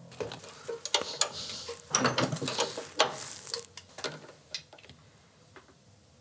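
Hand tool clicking and clattering against metal fittings while the motorcycle's spotlights are being wired and mounted. It makes a run of sharp clicks and short scrapes over the first four seconds or so, then fades to faint background.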